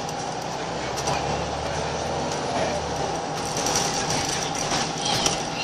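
Inside a Scania L94UB Wright Solar single-deck bus on the move: the diesel engine runs steadily under way with road noise, and a run of light clicks and rattles comes in the second half.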